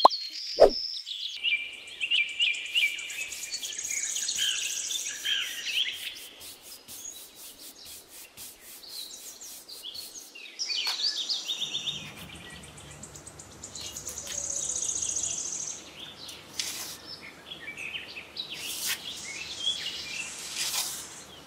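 Small birds chirping and twittering, with soft brushing and scraping of sand inside a small painted basin. A low steady hum comes in about halfway through.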